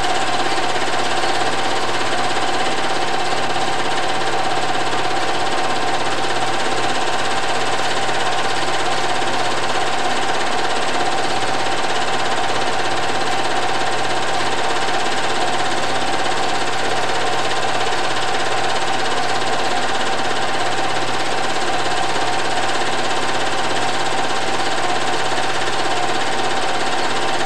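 Movie projector running steadily: a constant mechanical whir and clatter with one steady tone.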